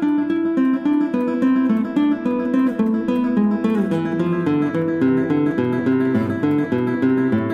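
Acoustic guitar music: a brisk melody of plucked single notes.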